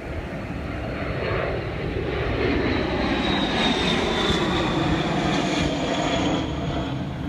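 An airplane flying over: a steady engine drone that swells over the first few seconds and eases off near the end, with a faint high whine slowly falling in pitch as it passes.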